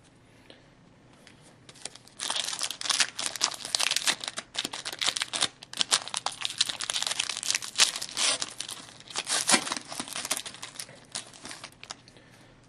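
A foil trading-card pack of 2010-11 Black Diamond hockey cards being torn open and its wrapper crinkled, a dense crackling that starts about two seconds in and goes on for about ten seconds.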